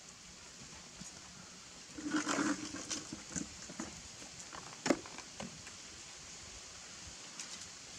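Brief scuffling and rustling as a baby macaque plays with a rope on a concrete floor, about two seconds in, followed by a few scattered clicks and knocks, the loudest a single sharp knock near the middle.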